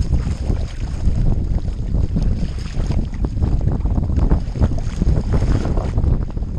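Wind buffeting the microphone of a deck-mounted camera on a sea kayak, a steady low rumble, with choppy water slapping the hull and paddle strokes splashing now and then.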